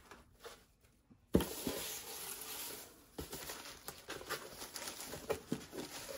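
A sharp knock about a second in, then a steady rustle full of small crackles as a cardboard box packed with shredded paper filler is rummaged through.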